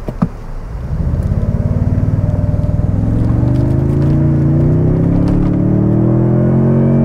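Toyota Tundra TRD Pro's 3.4-litre twin-turbo V6 accelerating, heard from inside the cab through its dual exhaust. The engine swells about a second in and its note climbs steadily in pitch as the truck picks up speed.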